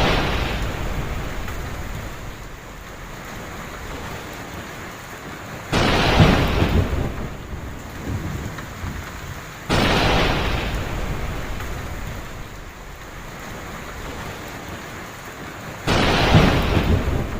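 Heavy rain falling steadily, with cracks of thunder that break in suddenly three times (about six, ten and sixteen seconds in), each rumbling away over a few seconds.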